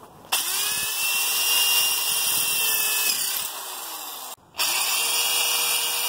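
Corded electric drill with a 7/32-inch Bosch masonry bit boring into brick. The motor spins up about a third of a second in and runs steadily, eases off around three seconds, stops briefly past four seconds and starts again; the new bit cuts quickly.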